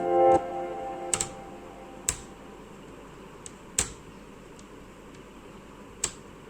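Background music ends just after the start, followed by a handful of sharp, irregularly spaced clicks and taps of small hard objects being handled, as in laptop disassembly work.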